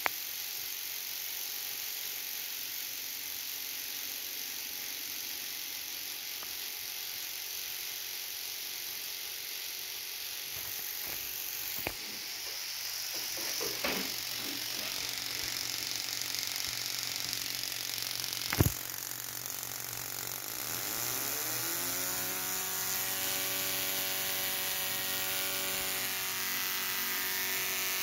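Ignition coil pack from a VW Gol G5/Fox firing spark plugs on a test bench, a fast, steady, rattling train of spark snaps. About three quarters of the way through, the firing rate rises and then settles at a new steady rate. Two sharp knocks come in the middle.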